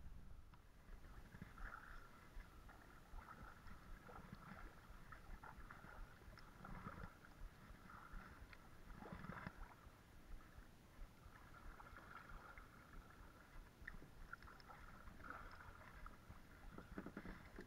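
Faint kayak paddling on calm water: the paddle blades swish and drip as they dip in, with a few soft knocks.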